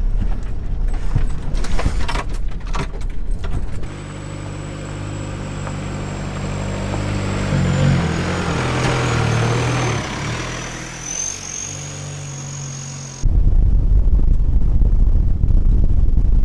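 VW Vanagon with a swapped-in TDI diesel engine driving. Heavy low road and wind rumble opens, then a steady engine drone that shifts pitch a couple of times, with a thin high whistle over it. It cuts abruptly back to loud low rumble near the end.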